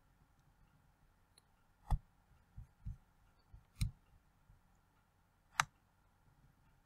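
Computer mouse clicking: three sharp clicks about two seconds apart, with a few soft low knocks between them.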